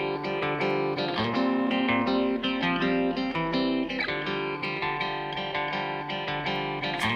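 Background music: guitar playing a plucked melody with chords.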